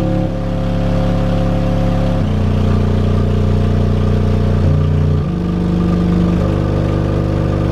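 Sundown Audio X12 V2 12-inch subwoofer playing free air with no enclosure, its cone making long excursions. Loud sustained deep bass notes with a stack of overtones, stepping to a new pitch about two seconds in and again about five seconds in.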